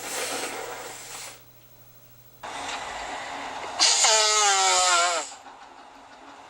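A person blowing their nose twice. The first blow is a breathy rush of air that stops about a second in. The second starts about two and a half seconds in and becomes a loud, wavering nasal honk before ending near five seconds.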